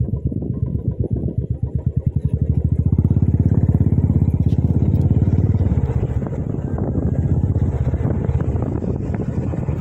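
Royal Enfield motorcycle engine running on the move, its exhaust beat a rapid, even pulse, growing louder about three seconds in.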